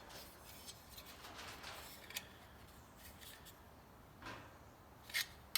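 Hand tuck tool being worked onto a sheet-steel flange to form a tuck for shrinking it: a few faint, light metal clicks and scrapes, spaced a second or two apart.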